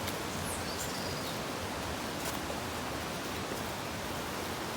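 Steady rush of flowing water from a waterfall, with a faint high chirp near the start.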